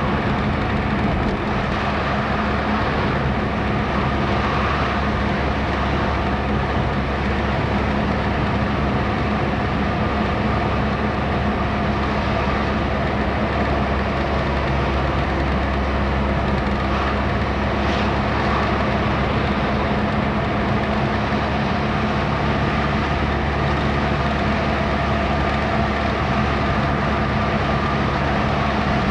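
Steady engine and road noise of a car driving along, an even drone with a constant hum and no breaks.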